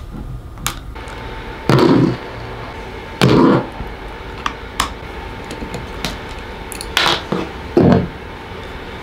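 Hand screwdriver backing screws out of a Makita impact driver's plastic housing, with a few sharp knocks and clatters as the tool is handled and turned over and small screws are set down on the table.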